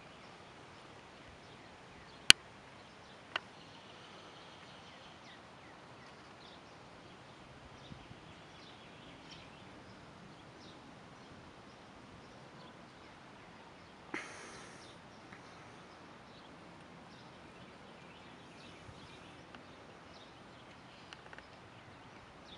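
Quiet outdoor ambience: a low steady hiss with faint scattered high ticks. A sharp click about two seconds in is the loudest sound, a weaker click follows a second later, and a brief rustle-like burst comes near the middle.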